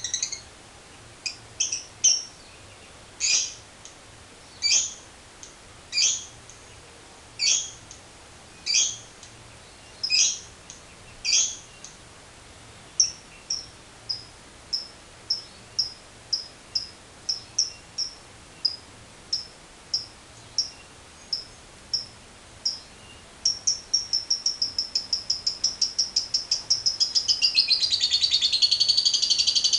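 Lovebird calling: sharp high chirps about every second and a half, then shorter chirps coming about twice a second. Near the end they run together into a fast, long chattering trill, the 'ngekek panjang' long chatter prized in lovebirds.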